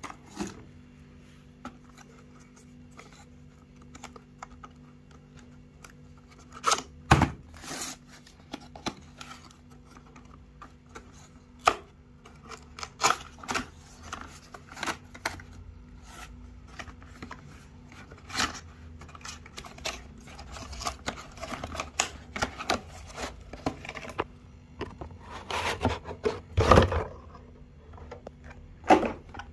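Handling noise from unboxing a camera and its packaging: irregular clicks, taps and rubbing, with louder knocks about seven seconds in and again near the end, over a steady low hum.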